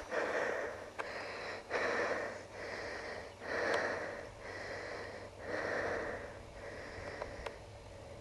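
Heavy, rhythmic breathing close to the microphone, about one breath a second, growing quieter near the end.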